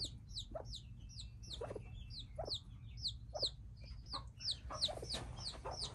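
Newly hatched Cochin bantam chicks peeping: rapid high, falling peeps, about three or four a second, with short low clucks from the broody hen brooding them.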